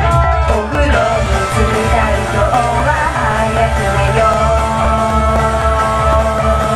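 Japanese idol pop song performed live: young women singing into handheld microphones over a backing track with a steady heavy beat, holding a long note in the second half.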